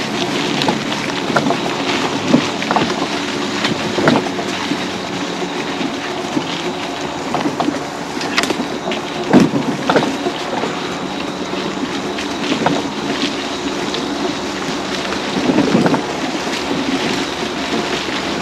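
High-speed electric mobility scooter running along a trail: a steady motor whine under the rolling noise of the tyres, with scattered knocks and clatters from bumps in the ground.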